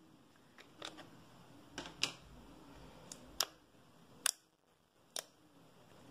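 Thin plastic slime tub squeezed and pressed with the fingers, giving a string of sharp clicks and pops about a second apart, the loudest about four seconds in.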